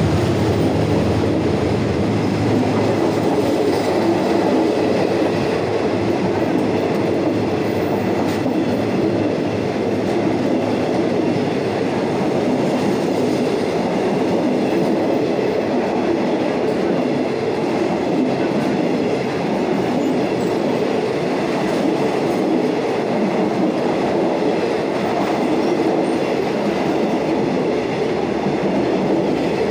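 Passenger coaches of a State Railway of Thailand train rolling past, a steady loud noise of wheels running on the rails. A low hum from the locomotive fades in the first second or so.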